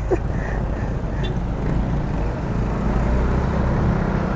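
Steady low rumble of wind and road noise on a helmet-mounted action camera's external microphone, the wind noise this mic is prone to, growing slightly louder partway through.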